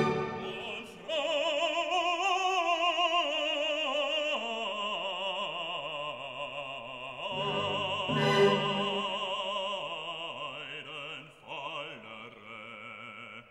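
Operatic singing in the background music: a voice holding long notes with wide vibrato.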